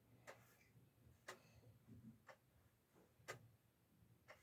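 Near silence with faint, evenly spaced ticks about once a second.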